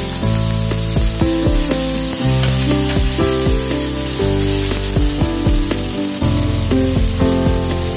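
Spinach and chopped garlic sizzling and frying in hot oil in a pan, a steady high hiss, under louder background music with shifting notes, bass and a regular beat.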